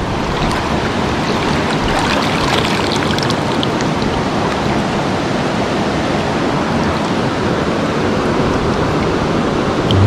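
Shallow mountain stream rushing over rocks right at the microphone, a steady, loud wash of water.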